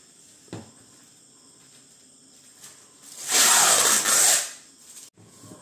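Plastic packing wrap being ripped off a box: a loud rushing tear lasting about a second, starting a little past the middle. A small click comes about half a second in.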